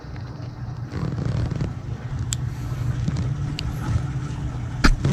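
A steady low engine hum, with a few light clicks of handled gear and one sharper knock near the end.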